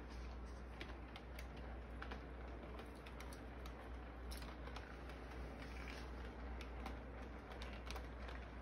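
Electric model train rolling along its track: wheels clicking irregularly over the rail joints, several light clicks a second, over a steady low hum.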